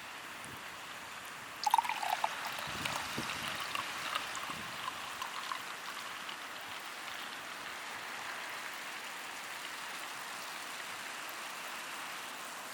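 Steady noise of sea surf. About two seconds in, a short run of clicks and small knocks starts and thins out over a few seconds.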